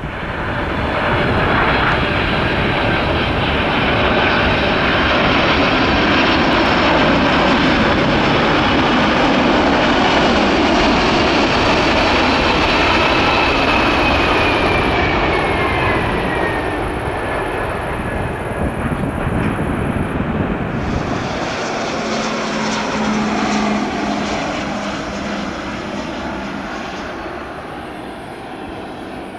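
Boeing 747-400F freighter landing and passing close by: loud four-engine jet noise that builds over the first couple of seconds, with an engine whine falling in pitch as it goes past, then settling lower and slowly fading.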